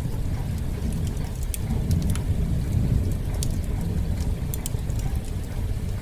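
Thunderstorm ambience: a steady downpour of rain under a low, continuous rumble of thunder, with a few sharp crackles scattered through.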